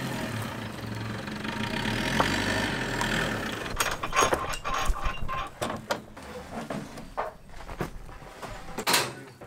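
Pine tongue-and-groove boards knocking and clattering as they are lifted off a truck bed and laid on a stack, with a run of sharp knocks from about four seconds in and a loud knock near the end. Under the first few seconds there is a steady low rumble.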